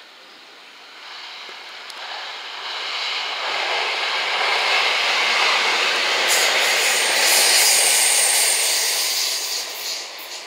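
JR West 227 series three-car electric train passing through the station at speed. Its rumble and rail noise build up, peak and then fade. A high-pitched wheel squeal joins about six seconds in and lasts until the train draws away.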